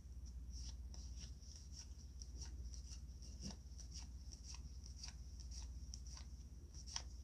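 Trading cards from a freshly opened booster pack being slid off the stack one at a time, a soft card-on-card flick about twice a second, over a low steady hum.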